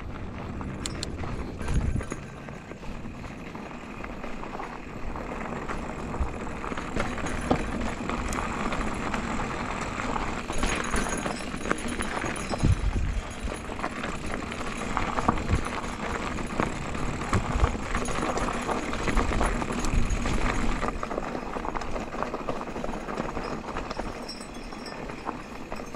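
Mountain bike rolling down a rocky dirt trail: tyres crunching over gravel and loose stones, with the bike rattling and knocking over bumps, a few heavier thumps among them.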